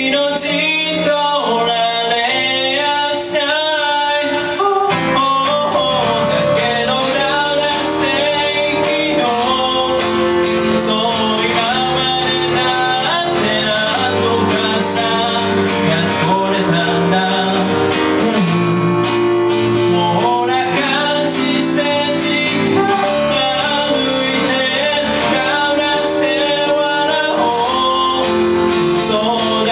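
Live acoustic pop song: a man sings lead while strumming an acoustic guitar, accompanied by a Yamaha electric keyboard.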